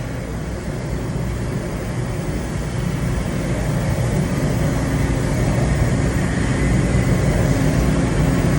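Air carbon arc gouging: a steady, loud, rumbling roar of the arc and compressed-air jet cutting into steel, slowly growing louder.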